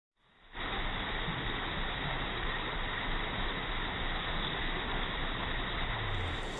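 Steady, muffled rushing noise of the open river setting, starting about half a second in, with no separate sharp sounds; the splash on the water does not stand out.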